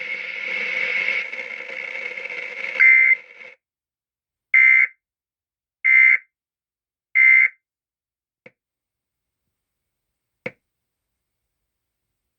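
Emergency Alert System end-of-message signal: three short, identical, buzzy digital data bursts about a second and a half apart, marking the end of the alert. Before them comes a few seconds of hiss with a steady high tone that ends in one brief loud burst, and after them two faint clicks.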